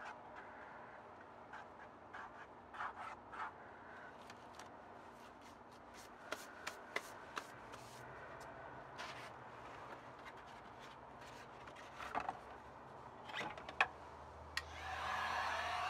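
Gloved hand rubbing and working wet spray paint on a painting surface: soft scraping with scattered light clicks and ticks. Near the end a spray paint can starts spraying with a steady hiss.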